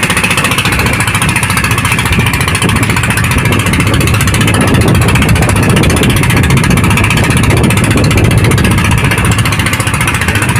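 Outrigger fishing boat's engine running steadily under way, a loud, rapid chugging.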